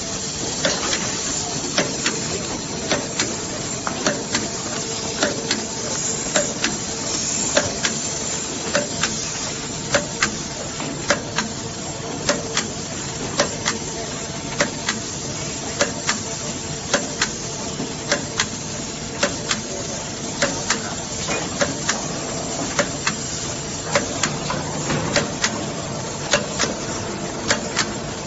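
TS-800B double-sided tape applicator machine running on a box folding line: a steady mechanical hiss and hum with sharp clicks repeating roughly twice a second.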